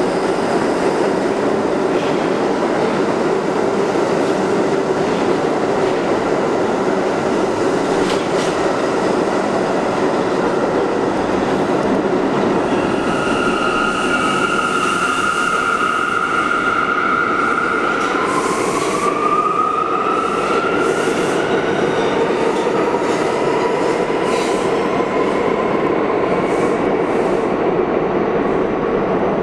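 Budd R32 subway train pulling out of an underground station: steady rumble of wheels on the rails, with high wheel squeal setting in about halfway through for several seconds, one squeal sliding upward in pitch.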